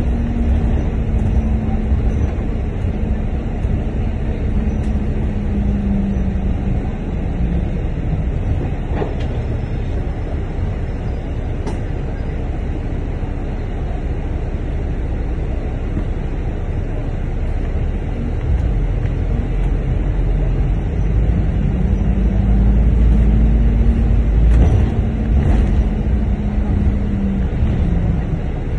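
Double-decker bus running, heard from on board: a steady low rumble with a whining drive tone that falls in pitch as the bus slows over the first several seconds, then rises and falls again as it pulls away and eases off in the last third, the rumble heaviest as it pulls away.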